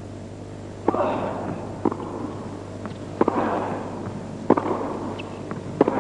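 Tennis ball struck back and forth with rackets in a rally on an indoor court: five sharp pops, roughly one every second and a half, each with a short ringing tail in the hall.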